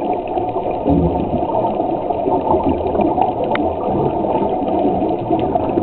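Steady, muffled rush of seawater heard through a submerged camera, with faint scattered clicks.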